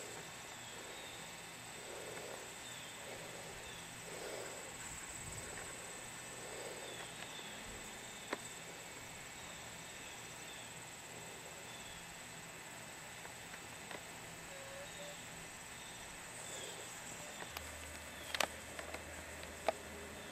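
Outdoor ambience of insects chirping steadily, with short chirps repeating every second or so over a constant high hum. A few sharp clicks come near the end.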